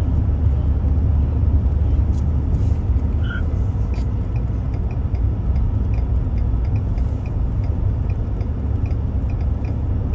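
Steady low road and engine rumble heard inside the cabin of a vehicle driving at highway speed, with a faint, evenly spaced ticking in the second half.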